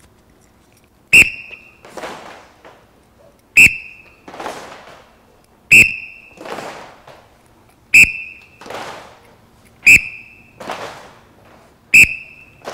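A referee-style whistle blown in six short, sharp blasts about two seconds apart, each answered by a ragged clatter of many fighting sticks as the pairs strike and block together on the signal.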